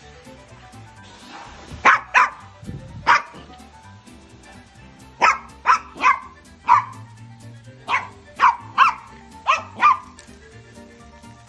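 Yorkshire terrier barking at a vacuum cleaner: about a dozen sharp barks in irregular clusters, starting about two seconds in, over background music.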